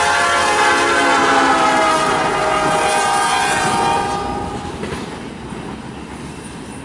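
Freight locomotive's multi-chime air horn sounding for a grade crossing, its chord sliding down in pitch as the engine passes and cutting off about four seconds in. Then comes the quieter rumble of freight cars rolling by on the rails.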